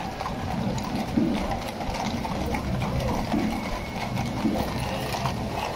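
Horse hooves clip-clopping on the street in a quick run of clicks, over the chatter of a crowd.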